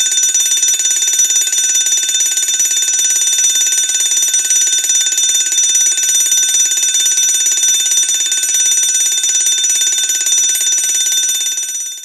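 Electric fire alarm bell ringing continuously, its clapper rattling very fast against the metal gong with a bright, high, steady ring. It dies away right at the end.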